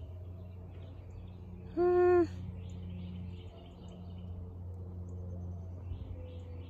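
Steady low outdoor hum with faint bird chirps. About two seconds in comes a single short hoot-like note, held on one pitch for half a second, which is the loudest sound.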